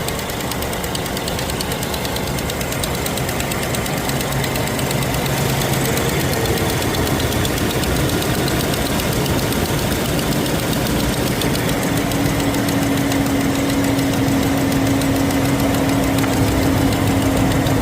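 Car engine idling from a cold start with the rapid, even ticking of an exhaust leak at the front of the engine. A steady tone joins about ten seconds in. The leak is one that seals up as the engine warms, which the mechanic puts down to a leaking exhaust manifold gasket or a cracked manifold.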